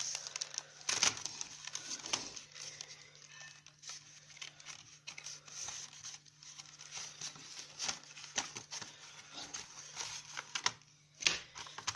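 Pen packaging being torn and opened by hand: irregular crinkling, rustling and small snaps, with sharper tears about a second in and near the end.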